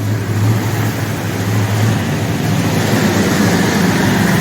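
Rebuilt 1979 Ford F-150 truck engine running steadily on the cold-start fast idle while it warms up, with a steady high whine joining about three seconds in. The engine has not yet been kicked down to its normal idle, which the owner says it won't hold.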